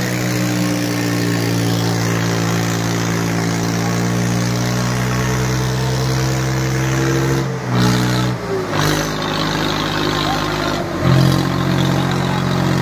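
Diesel tractor engine running at high, steady revs under heavy pulling load, front wheels lifted. About eight seconds in it falters and drops, then comes back up to speed a few seconds later.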